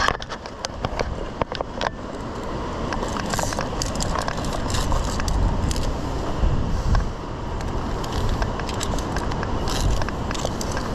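Via ferrata gear: metal carabiners and lanyards clinking and scraping against the steel rungs and cable in scattered light clicks, thickest in the first two seconds and again around the middle and near the end, over a steady low rush.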